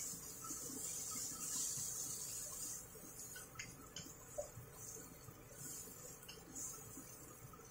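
Chopped tomatoes, onion and butter sizzling faintly in a nonstick frying pan as they are sautéed and stirred with a wooden spatula, with a few light taps of the spatula against the pan about midway. The sizzle is strongest in the first few seconds and then fades.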